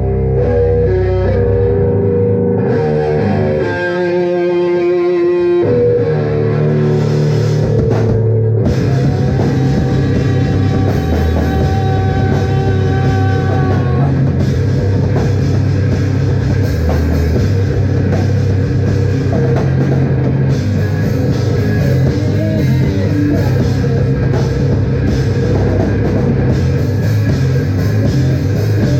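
Live rock band playing loud, distorted electric guitar over bass and drums. The opening seconds are mostly ringing guitar notes, and the full band with crashing cymbals comes in about eight seconds in.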